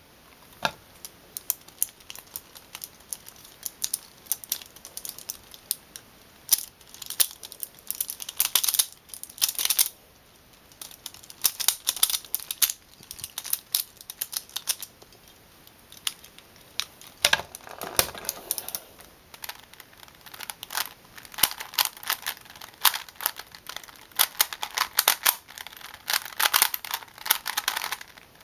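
Plastic twisty puzzles (a Pyraminx and Rubik's-type speedcubes) being turned fast: rapid clicking and clacking of the layers in dense flurries, with a couple of short lulls.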